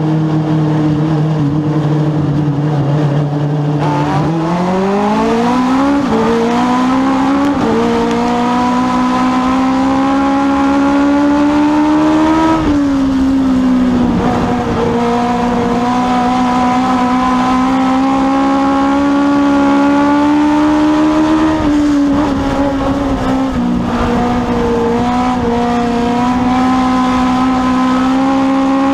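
Legends race car's Yamaha four-cylinder motorcycle engine, heard from inside the cockpit: running low and steady, then about four seconds in it revs up in steps through the gears, and holds a high steady pitch at racing speed, easing off briefly twice and picking up again near the end.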